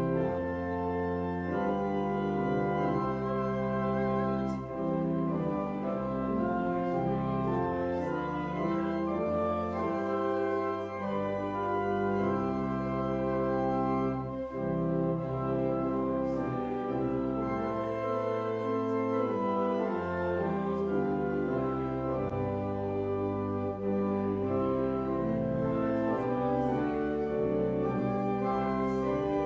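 Church organ playing a hymn in full, sustained chords that change every second or two.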